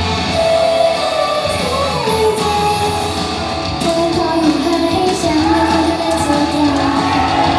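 Live pop performance: female voices singing a melody over a loud backing track with guitar.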